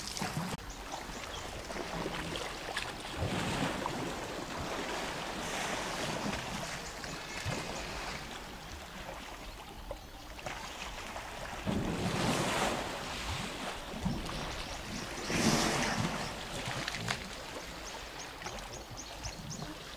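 African savanna elephants splashing and wallowing in a muddy river: a steady sloshing of water, with louder splashing surges about twelve and fifteen seconds in.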